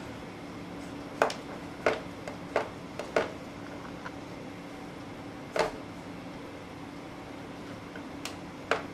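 Irregular sharp knocks and clicks, about ten of them, from a baby walker's plastic tray and the toys on it as the baby handles and bangs them, over a low steady room hum.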